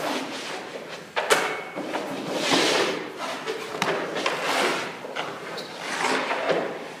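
Hockey goalie's skate blades scraping across the rink surface in short pushes and pivots, with thuds and knocks of the leg pads and gear; the sharpest knock comes about a second in.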